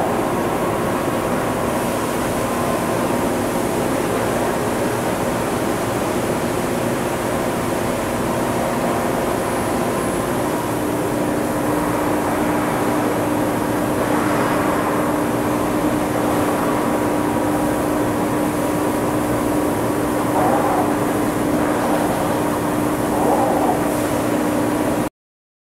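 Steady drone of a Pullmax 440-ton CNC hydraulic press brake running, its hydraulic system under power; a steady hum joins about ten seconds in, with a few faint squeaks later on. The sound cuts off suddenly near the end.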